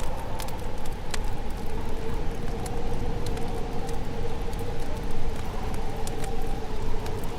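Fire crackling: scattered sharp snaps and pops at irregular intervals over a steady low rush and a faint steady drone.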